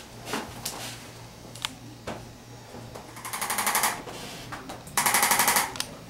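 Arthrostim handheld electric adjusting instrument firing two short bursts of rapid taps, about three and five seconds in, each lasting under a second. The taps drive the bone toward its proper position in a chiropractic adjustment.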